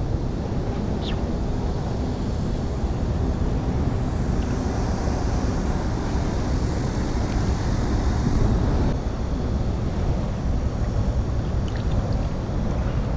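Strong wind blowing across the microphone, a steady low rushing and buffeting.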